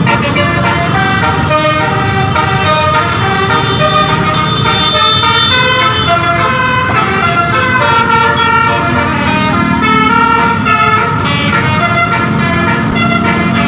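A tour bus's Basuri telolet horn playing a tune: several horn notes stepping up and down in pitch one after another, over a steady low rumble.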